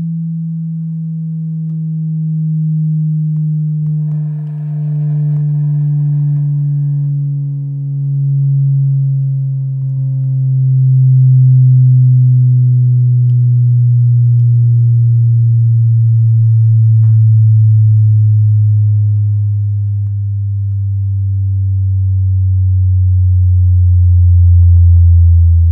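Bass test tone played loud through a Teufel Concept C 2.1 speaker system, sliding slowly and steadily down in pitch from about 170 Hz to under 100 Hz.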